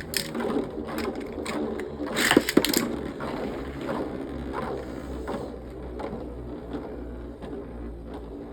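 Two Beyblade spinning tops whirring and clashing in a battle, just after launch. The early part is a fast clatter of knocks with two sharp hits about two and a half seconds in. It settles into a steady rattling whir that slowly fades as the tops lose speed.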